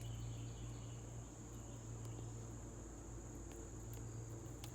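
Quiet background: a low steady hum and a high steady whine, with a couple of faint clicks near the end.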